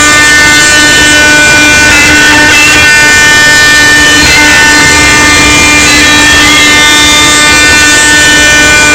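CNC router spindle cutting laminated hardwood: a loud, steady, high whine of stacked tones over an even rushing noise from the cut.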